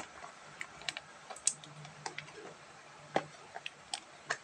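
Small cardboard box being handled and opened by hand: irregular light clicks and taps as the flaps are pulled and the box is turned, over a faint steady low hum.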